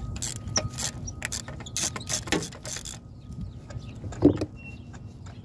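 Ratchet and spark-plug socket clicking in short irregular strokes as a tight spark plug is worked loose. The clicks gather in the first three seconds, then it goes quieter, with one sharp knock about four seconds in.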